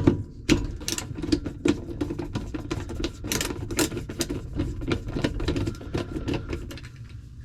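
Irregular rapid metallic clicking and rattling of a tool working loose a bolt on a dishwasher's drain assembly, over a steady low rumble.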